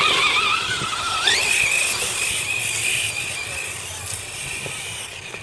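An electric RC car motor whining. The pitch climbs steeply about a second in as the car speeds up, then holds high and steady before fading away near the end.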